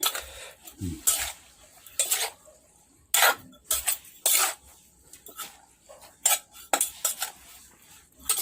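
Pestle knocking and clattering in a mortar as a seafood papaya salad is pounded and mixed, in irregular sharp knocks about one a second.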